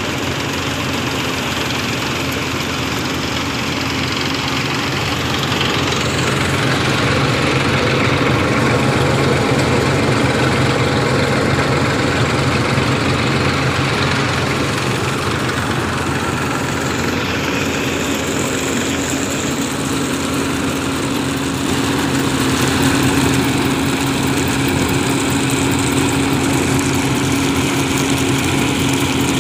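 Massey Ferguson 241 DI tractor's three-cylinder diesel engine running steadily at a fixed speed while it drives a groundnut thresher, with the thresher's dense running noise mixed in. It grows a little louder, with a stronger hum, about two-thirds of the way through.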